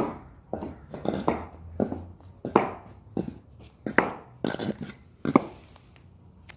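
Carved Dutch wooden shoes (klompen) clopping on a concrete walkway as a man walks in them, about two hollow knocks a second, the loudest step about five seconds in, then the steps stop.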